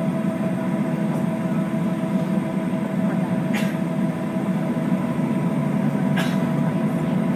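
Boeing 737-800's CFM56 jet engines running at idle during taxi, heard inside the passenger cabin as a steady hum with a steady whine. Two brief high swishes about three and a half and six seconds in.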